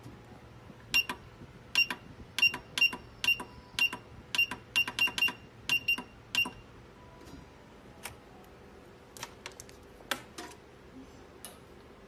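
A USB cable testing machine giving a quick run of short, sharp click-beeps with a ringing high tone, about fourteen in some five seconds. A few fainter clicks follow later.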